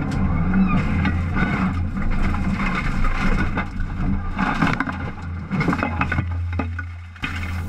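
Rally car heard from inside the cabin, its engine holding a steady low note while the car crashes off the road through undergrowth. There is a run of knocks, bangs and scrapes, thickest in the last couple of seconds.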